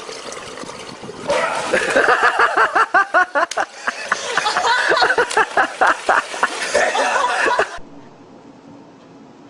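People laughing hard in rapid bursts for several seconds, cut off suddenly near the end, after which only a faint steady hum remains.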